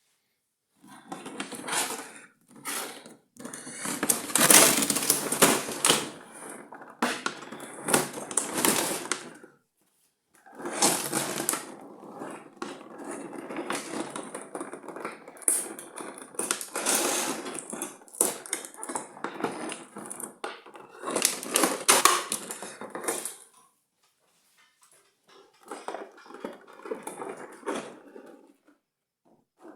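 Packaging being handled and unpacked: crinkling and rustling with knocks and crackles, in three long stretches that stop abruptly between them.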